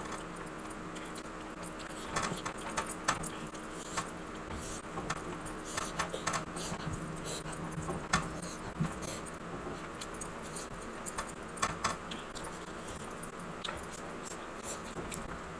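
Close-up eating sounds: irregular chewing and mouth clicks, with small clinks scattered throughout.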